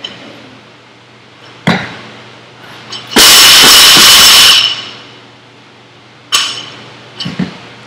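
Loaded barbell knocking and clanging against the gym floor during a power clean: a sharp knock about two seconds in, then a loud crash with ringing metal lasting over a second that overloads the microphone, then another knock and a couple of light taps near the end.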